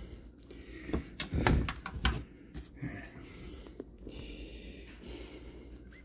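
Handling noises from the plastic parts of an LG dishwasher being unlatched and worked loose underneath the machine: a few knocks and clicks in the first two seconds, then a soft hiss.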